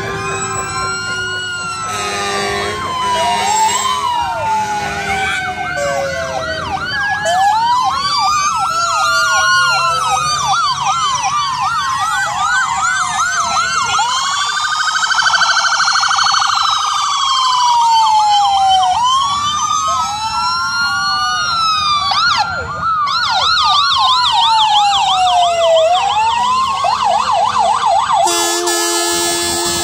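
Several emergency-vehicle sirens from fire trucks and ambulances sounding at once, with overlapping rising-and-falling wails. Near the end a fast warbling yelp joins in, followed by a short horn blast.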